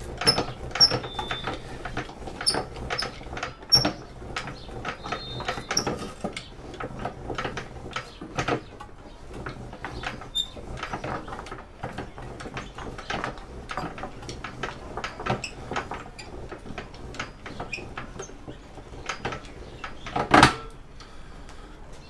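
Enerpat manual copper wire stripper being cranked as a thick, kinked scrap copper cable is forced through its rollers and blade: irregular clicking, creaking and knocking, with a louder knock near the end. It is hard going for the machine.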